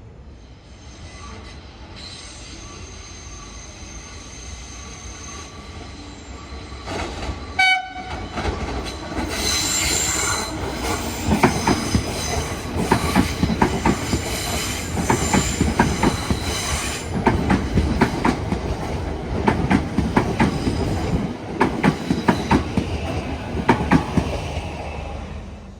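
X'Trapolis electric train approaching with a high thin whine, a short horn blast about seven and a half seconds in, then going by loudly with its wheels clacking rapidly over the rail joints until the sound cuts off at the end.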